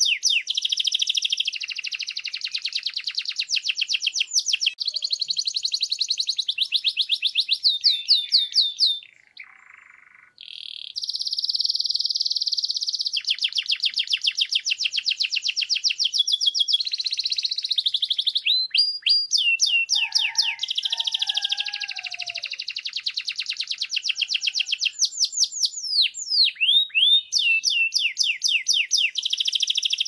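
Canary singing a long, loud song of very fast trills and rapidly repeated high notes, with a short break about nine seconds in.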